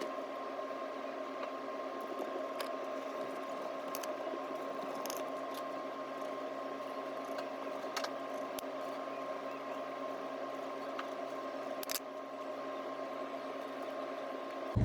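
Steady machine hum with a few fixed tones, and a handful of faint clicks now and then.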